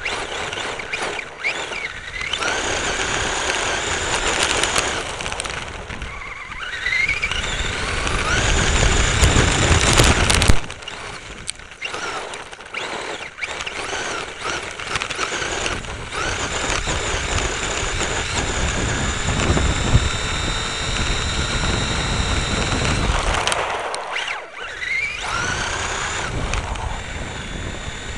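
Thunder Tiger Phoenix BX 1/10 R/C buggy driving on gravel, heard from a camera mounted on it: its electric motor and gear drive whine rises in pitch each time it accelerates, over the rattle of tyres and chassis on the loose surface. The loudest stretch of gravel and running noise stops abruptly about ten seconds in.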